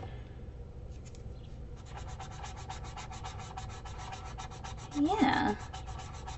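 Paper blending stump rubbed quickly back and forth over chalk pastel on drawing paper, smudging the strokes: a fast, even run of scratchy strokes that starts about two seconds in.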